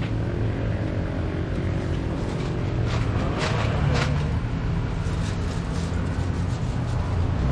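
A motor vehicle's engine running steadily, a low hum, with a few short clatters about three to four seconds in.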